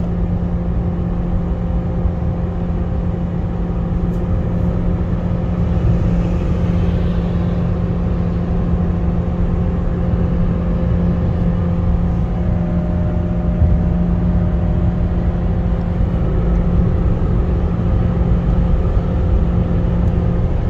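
Mercedes A-Class heard from inside the cabin while driving: steady engine drone at constant revs over the rumble of tyres and road.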